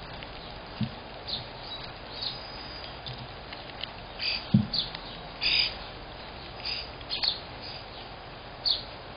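Squirrel eating seed close to the microphone, with short high chittering and crunching sounds every second or so. Two dull knocks come through, one about a second in and one near the middle.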